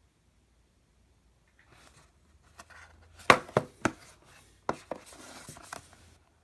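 A cardboard retail box being handled on a wooden table: a string of sharp taps and knocks, the loudest about three seconds in, with light rustling between them.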